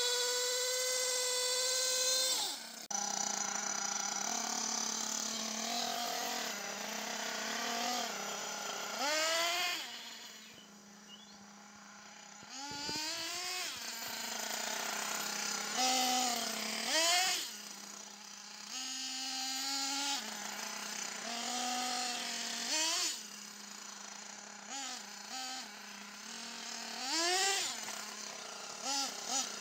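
Nitro glow engine (Savage XL 4.6 cc, two-stroke) of a 1/8-scale HPI Trophy Truggy RC truggy being driven, revving high and dropping back to idle over and over. It fades for a couple of seconds about ten seconds in.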